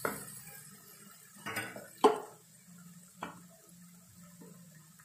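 Wooden spatula knocking against a kadai while stirring a thick masala: a few separate clacks, the loudest about two seconds in.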